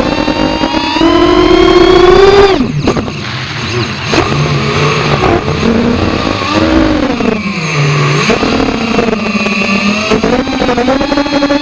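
FPV racing quadcopter's motors and propellers whining, the pitch rising with throttle, dropping abruptly about two and a half seconds in as the throttle is cut, wavering up and down through the middle, then climbing again near the end.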